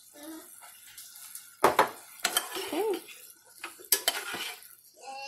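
Metal spoon scraping and clinking against a saucepan while scooping out cooked chicken pieces, with a few sharp clinks, the loudest about a second and a half in and near four seconds.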